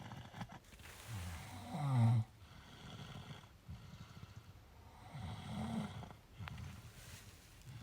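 Snoring in slow, drawn-out breaths: two snores about three and a half seconds apart, the first the louder, with quieter breathing between.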